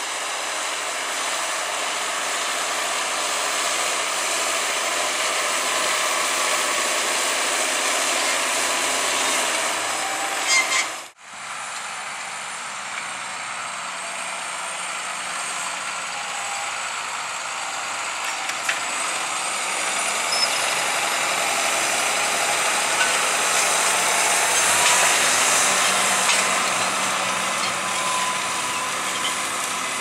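John Deere 7530 Premium tractor's six-cylinder diesel engine running steadily under load, pulling a five-furrow Lemken reversible plough. The sound cuts out briefly about eleven seconds in, then carries on as before.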